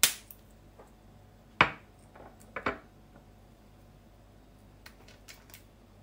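Hard clacks of spice containers and utensils being handled on a kitchen counter: three sharp knocks in the first three seconds, then a few lighter clicks near the end.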